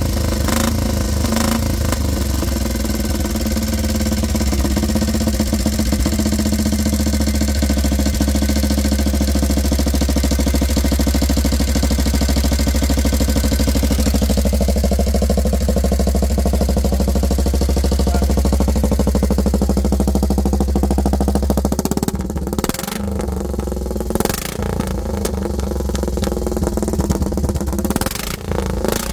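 Sunbeam 95 motorcycle's single-cylinder overhead-valve engine running steadily, with a few short changes in its note in the last third.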